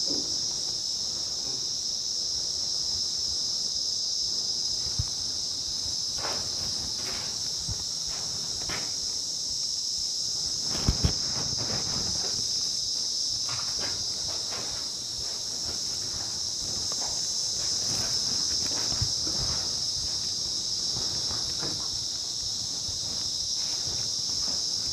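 A steady, high-pitched insect chorus, with a few soft knocks or footsteps now and then.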